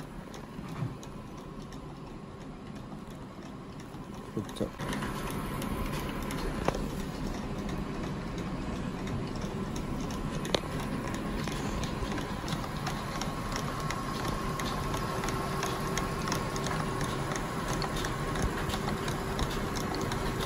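Apheresis machine running: a steady hum with a faint, fast, regular ticking, getting louder about five seconds in.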